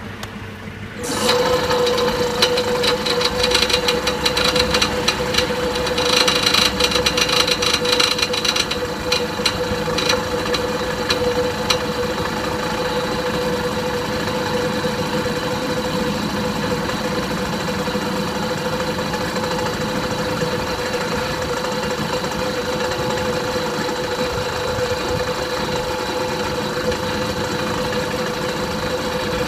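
Kanematsu air compressor starting about a second in and running, with a clatter over the first ten seconds or so before settling into a steady hum.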